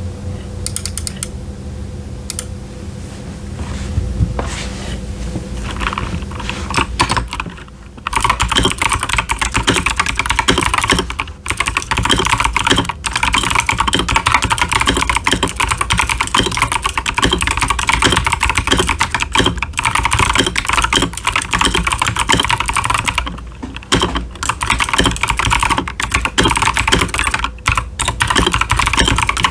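Typing on a stock Akko 5075s mechanical keyboard with TKC Blackberry clicky switches and ASA-profile doubleshot PBT keycaps. A few scattered keystrokes come first, then rapid continuous typing from about eight seconds in, broken by a few brief pauses.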